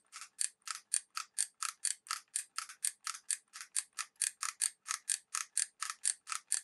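Trigger-driven solder feed of a Toolour 80W soldering gun clicking as the trigger is worked again and again, pushing solder wire out to the hot tip: a steady run of short, even clicks, about four a second.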